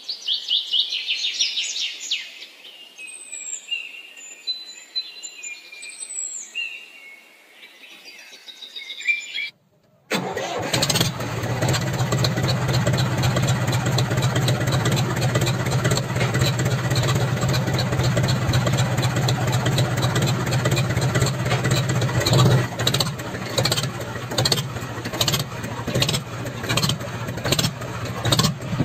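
Birds chirping for about the first ten seconds. Then, after a brief break, a steady motor-like engine sound starts and runs to the end, with a low hum and a fast regular pulse.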